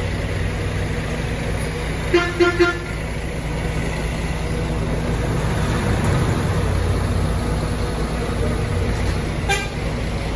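A vehicle horn toots in three quick blasts about two seconds in, then once more briefly near the end. Under it, a vehicle engine rumbles low and steadily.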